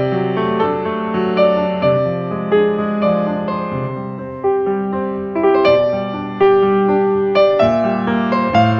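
Background piano music: a slow, gentle melody of single notes and chords, each note struck and left to fade.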